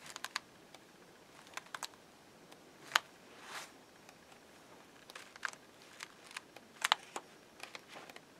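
Paper pages of a ring-bound book being turned one after another: soft, irregular short clicks and rustles, the sharpest about three seconds in.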